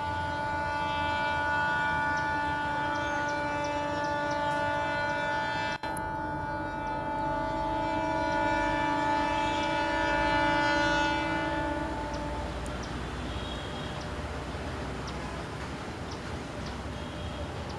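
Locomotive air horn sounding one long steady blast of about twelve seconds, the warning of an approaching train, then cutting off and leaving a low rumble.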